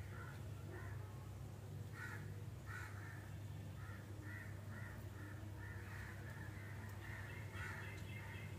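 Birds calling over and over, short calls several a second, more crowded near the end, over a steady low hum.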